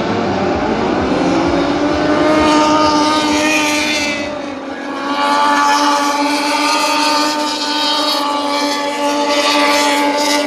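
Moto2 racing motorcycles' Triumph 765 cc three-cylinder engines revving hard as they accelerate past, the pitch climbing. The sound dips briefly about four and a half seconds in, then swells again and holds at high revs.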